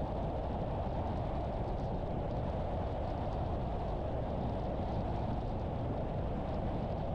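Steady road noise from a moving car: tyres on pavement and a low rumble, even throughout with no distinct events.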